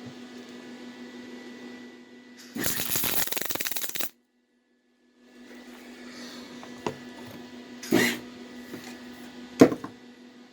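A loud burst of arc-welding crackle, about a second and a half long, while a gusset is welded onto the mini bike frame, over a steady low hum. It cuts off abruptly, and a few sharp metal knocks follow later.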